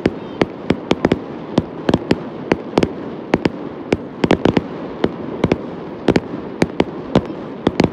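Fireworks display going off: sharp bangs and pops in quick irregular succession, about three a second, with no let-up.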